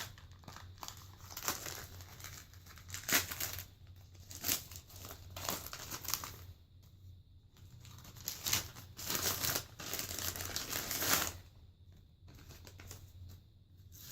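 Double-wrapped patch packaging being torn open and crinkled by hand: irregular crackling crinkles in bursts, the longest and loudest run about nine to eleven seconds in, with quieter gaps between.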